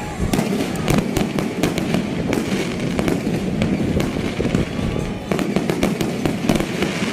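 Aerial fireworks going off in quick succession: a stream of sharp bangs and crackling bursts.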